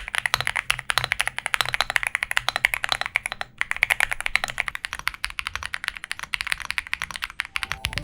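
Fast typing on a mechanical keyboard: a quick, continuous run of key clacks, with a brief pause about three and a half seconds in.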